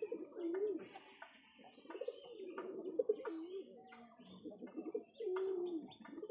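Domestic pigeons cooing: a string of low, warbling coos that rise and fall, one after another.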